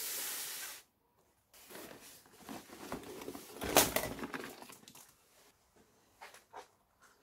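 A short burst of hiss, then a cardboard box being handled with rustling and scraping and one loud knock on a steel workbench just before the middle; a few light clicks follow as wires are moved about.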